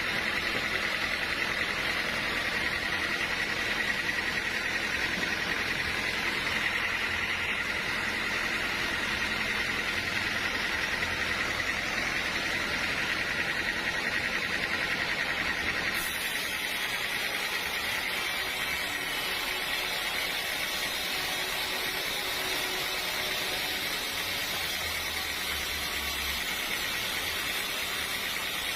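Sawmill machinery running steadily: a continuous motor hum with a hiss and a faint held whine. Its character changes abruptly about two-thirds of the way through.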